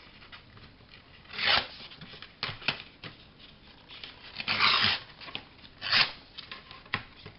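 Paper being handled and rubbed: several short rustling scrapes and one longer rustle about two thirds of the way through, with light taps between.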